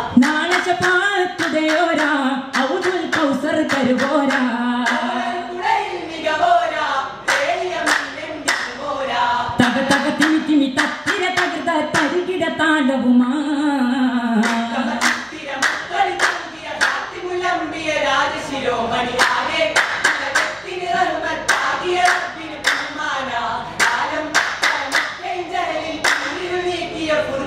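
Vattappattu, the Mappila wedding-song form of Kerala: a group of young men singing in chorus without instruments, marking the rhythm with sharp hand claps that come thicker from several seconds in.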